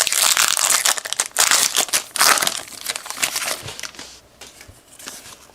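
Plastic trading-card pack wrapper crinkling and being torn open, loudest over the first two or three seconds and then dying away.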